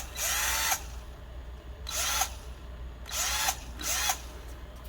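Ryobi HP108L 8-volt cordless drill's motor triggered in four short bursts, each spinning up and winding down. It is running on its freshly resoldered lithium-ion cells.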